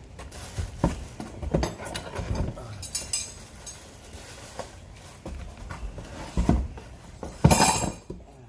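Metal exhaust parts and hardware being handled: scattered clinks and knocks, with one louder clatter near the end.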